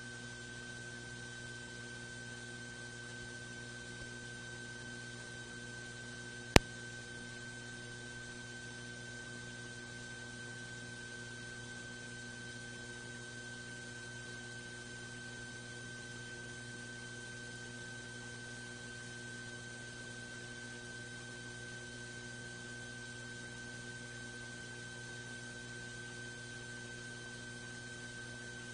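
Steady electrical hum with a thin high whine over faint hiss, with one sharp click about six and a half seconds in.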